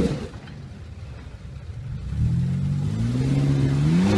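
Off-road SUV engine revving hard under load on a steep rock climb. The revs fall away just after the start, then build again from about two seconds in, the pitch rising slowly.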